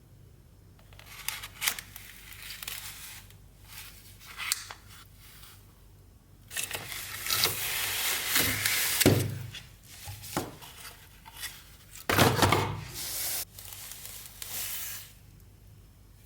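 Gaming-mouse retail packaging being opened and handled by hand: irregular tearing, rubbing and crinkling with scattered taps and clicks. There are two louder spells of tearing or scraping, one about halfway through and one a few seconds later.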